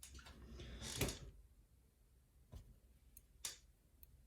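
A lock being taken apart by hand: a faint scrape, then a few small, sharp metallic clicks as its pins and springs are worked out of the cylinder.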